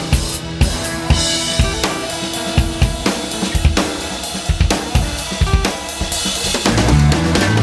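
Background rock music: a steady drum-kit beat with kick, snare and cymbals over held chords, with a fuller, heavier part with bass coming in near the end.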